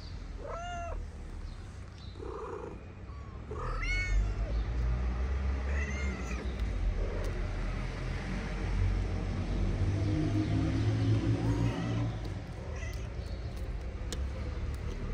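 Kittens meowing: a handful of short, high meows, each rising and falling in pitch, scattered through, the loudest about four seconds in. Under them a low rumble comes up a few seconds in and stays.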